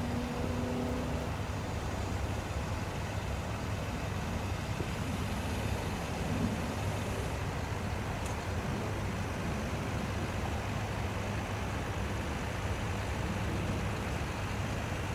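Tractor engine running steadily, with a constant low drone and no change in speed.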